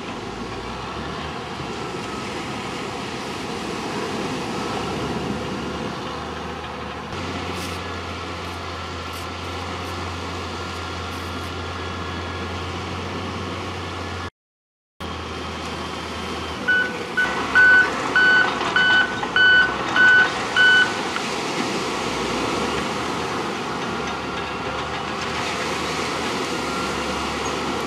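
Steady outdoor noise of heavy earth-moving machinery at work, with a construction vehicle's reversing alarm beeping about twice a second, some eight times, a little past the middle. The sound drops out for under a second near the middle.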